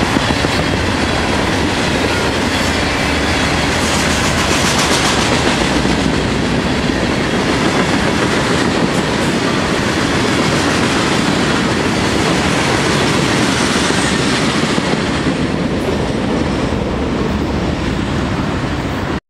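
Freight train's hopper and gondola cars rolling past close by, steel wheels running on the rails in a steady loud rumble. The sound thins a little near the end as the last cars go by.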